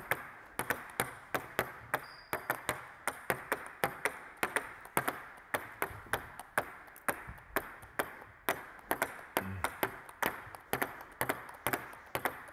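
Two celluloid table tennis balls bounced over and over on bats, a run of sharp ticks at about three a second in two overlapping, uneven rhythms.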